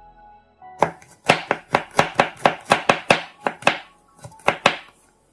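Chef's knife chopping fresh garlic cloves on a wooden cutting board: a quick run of crisp strokes at about four a second starting about a second in, then a short pause and two more strokes near the end.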